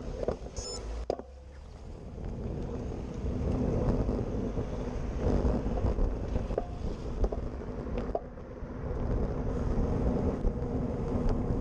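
Wind buffeting and road rumble picked up by a handlebar-mounted GoPro Hero Session as a road bike rolls off and gathers speed, getting louder a few seconds in, with a few sharp knocks from bumps in the road.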